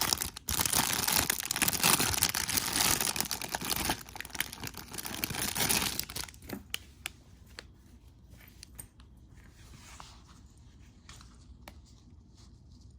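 Plastic packaging being torn open and crinkled by hand, loud and dense for about six seconds, then giving way to quieter scattered clicks and rustles as the contents are handled.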